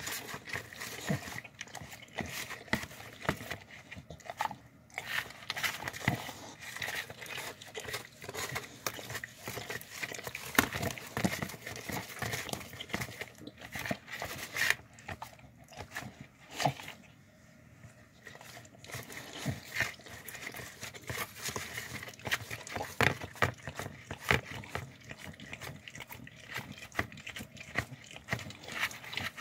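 Dogs eating chicken cilantro pasta from a clear plastic tub: steady chewing and licking, with many short irregular clicks of teeth and tongues against the plastic. There is a brief lull a little past halfway.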